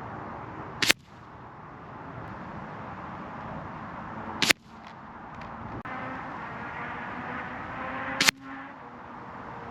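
Three shots from a .22 Benjamin Armada PCP air rifle, each a short sharp report, about four seconds apart, over wind noise on the microphone.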